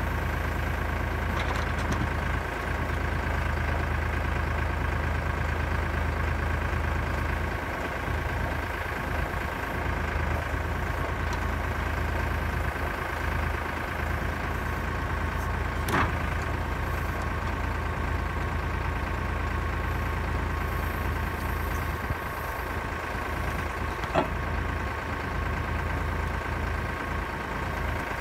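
Kioti tractor's diesel engine running steadily while it drives a hydraulic log loader, with two sharp knocks, one about halfway through and one later, as logs are handled onto the trailer bunk.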